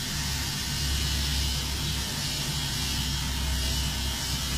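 Electric dog-grooming clippers running steadily with a low hum while shaving the hair under a dog's chin, over a constant hiss.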